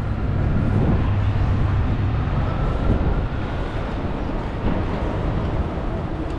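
City street traffic: cars and a box truck moving along a busy avenue, with a steady low engine rumble that is heaviest in the first few seconds.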